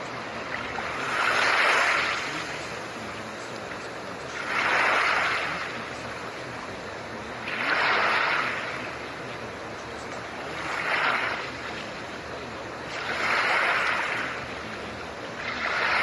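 Steady blue-noise hiss under soft ocean waves, each wave swelling and washing away about every three seconds.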